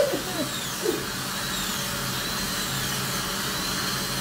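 High-speed dental drill grinding teeth down for prosthetic work. Its high whine dips in pitch and recovers about once a second as the bur bites, over a steady hiss and low hum.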